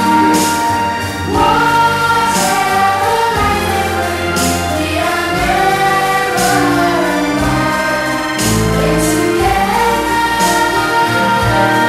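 Music with a choir singing long held notes over instrumental accompaniment and a moving bass line.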